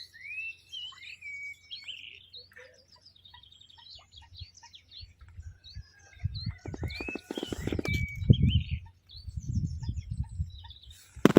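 Songbirds singing, with whistled gliding phrases and chirps. About six seconds in, low rumbling thuds join them, loudest near eight seconds, and a short loud noisy burst comes right at the end.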